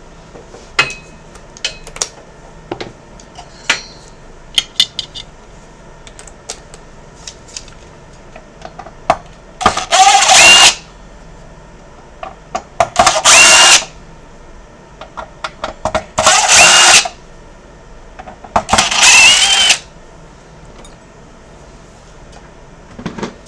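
Small electric screwdriver backing out the screws that hold the Xbox One S motherboard: four runs of about a second each, its motor whine rising a little in pitch near the end of each. Light clicks and taps of handling the console's parts come before the first run.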